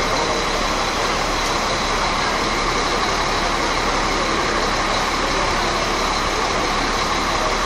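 Diesel bus engines idling, a steady drone with a constant high whine running through it.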